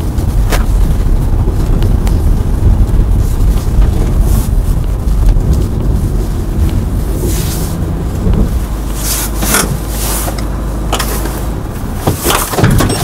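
Peugeot Expert van with a 1.6-litre engine driving slowly across packed snow toward the microphone and pulling up, engine running and tyres on snow, over a heavy low wind rumble on the microphone.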